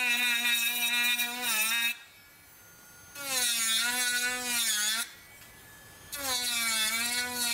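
Dremel Stylo rotary carving tool running in three bursts as its burr cuts footprint shapes into a wooden bowl rim, a high motor whine that wavers and dips in pitch as the cutter presses into the wood.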